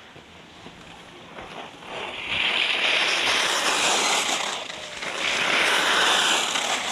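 Racing skis carving and scraping on hard-packed snow through giant slalom turns: a hissing scrape that swells loudly twice, about two seconds in and again about five seconds in.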